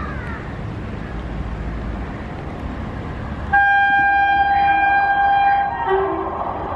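Electric locomotive horn sounding one long steady blast about three and a half seconds in, over the steady rumble of an approaching express train.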